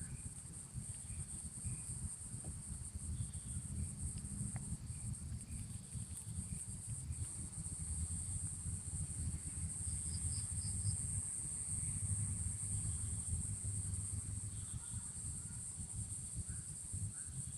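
Insects droning in one steady high-pitched note, with a low rumble underneath and a few short trills of quick chirps now and then.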